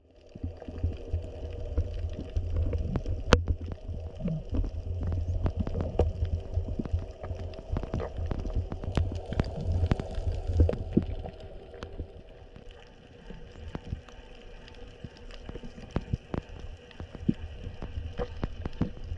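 Underwater ambience: a low rumble of water moving against the camera with many scattered sharp clicks and crackles, and a faint steady hum underneath. It grows quieter about two-thirds of the way through.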